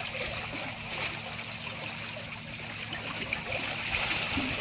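Water rushing steadily out through the opened sluice gate of a shrimp pond as it is drained into a net bag.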